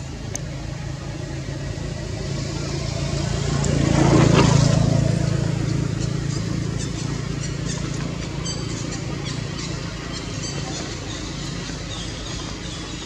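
A motor vehicle passes by. Its engine hum and noise swell to a peak about four seconds in, then slowly fade away.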